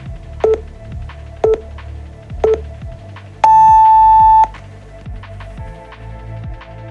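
Workout interval-timer countdown beeps over electronic background music: three short beeps a second apart, then one long, louder beep about three and a half seconds in as the countdown reaches zero, marking the end of the exercise interval.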